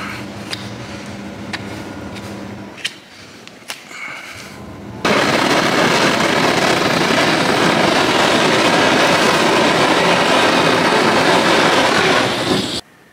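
A handheld gas torch, a nozzle on a white gas canister, is fired about five seconds in. It blows a loud, steady hissing rush of flame and air onto a cow's freshly trimmed claw, warming and drying it so the glue for a hoof block will stick, and it cuts off abruptly near the end. Before it, a low hum and a few light clicks.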